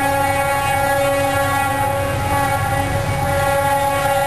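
Air horn of an approaching Norfolk Southern locomotive, still out of sight, sounding one long continuous multi-note chord, over a low rumble.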